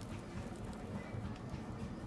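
Large spoked potter's wheel spinning with a steady low rumble; the speaker says its bearing underneath is bad and the wheel still shakes.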